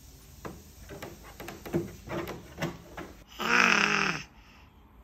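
Eight-month-old baby babbling in a string of short sounds, then letting out a loud, held yell with a wavering pitch lasting about a second, a little past the middle.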